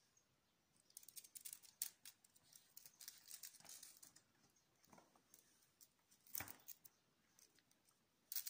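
Faint, irregular scuffs and light taps of kittens' paws scampering on a concrete floor as they play, with one sharper tap a little after six seconds in.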